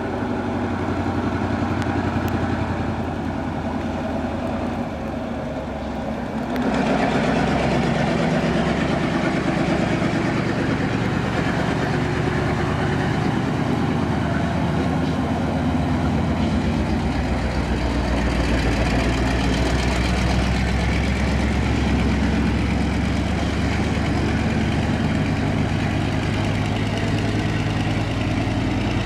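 Diesel engine of a lattice-boom mechanical truck crane running as the crane drives along the road, with a low steady hum and tyre hiss on the wet pavement. The sound gets louder about six and a half seconds in and stays steady after that.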